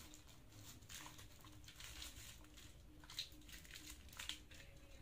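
Faint rustling and light clicks of small plastic-wrapped packets being handled by a child, with two sharper clicks about three and four seconds in.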